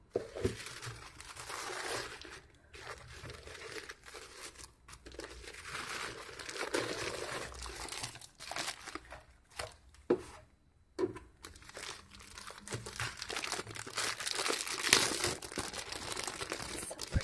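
Tissue paper and a clear plastic bag crinkling and rustling as they are handled and pulled away from a boxed planner. The rustling comes in fits and starts with short pauses, loudest about fifteen seconds in.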